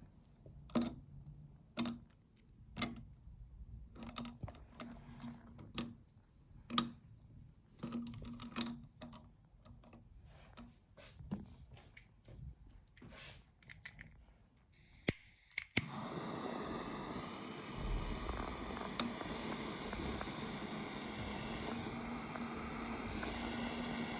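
Scattered clicks and taps of items being handled, then about two-thirds of the way in a meat grinder starts and runs steadily with a low hum.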